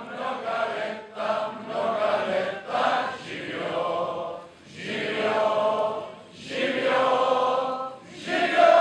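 A large crowd of adult voices singing together in short phrases, with a long, louder held note starting near the end.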